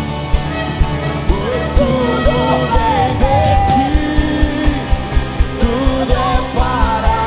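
Live worship band playing: acoustic guitar and bass over a steady beat, with voices singing a Portuguese worship song that comes in a little over a second in.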